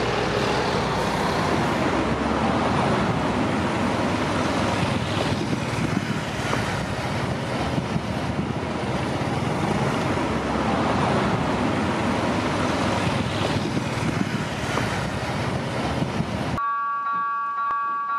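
Road traffic on a busy road, with cars and buses passing. Near the end it cuts to a level crossing's electronic warning bell ringing in steady tones.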